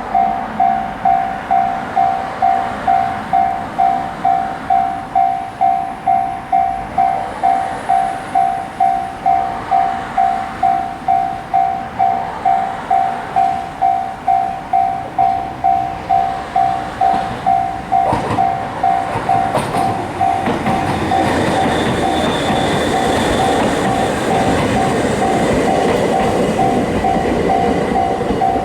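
Japanese level-crossing alarm bell ringing its even "kan-kan", about one and a half strikes a second. About eighteen seconds in, a Toyohashi Railway Atsumi Line electric train starts to pass, its wheels and running noise swelling under the bell to the end.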